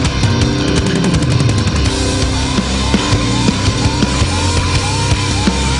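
Loud rock music soundtrack in an instrumental stretch with no singing: a drum kit beat under dense guitar-band sound, with a short rising figure repeating quickly from about halfway.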